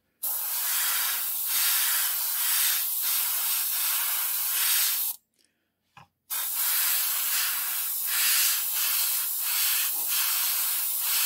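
Airbrush spraying black Stynylrez primer onto small plastic model parts: two long, steady hissing passes of about five seconds each, with a short pause and a small click between them.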